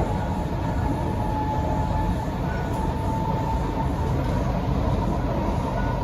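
Interior running noise of an SMRT C151C metro train (Kawasaki & CRRC Sifang) at speed: a steady low rumble of wheels on rail, with a faint high whine over it.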